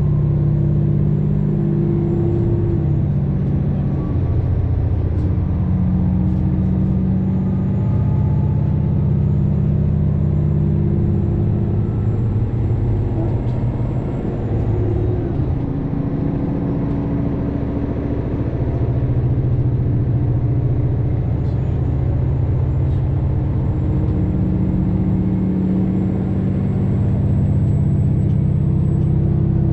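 Super Hokuto diesel limited-express train under way, heard from on board. Its underfloor diesel engines drone over the steady rumble of the wheels on the rails, and the engine pitch shifts up and down every few seconds.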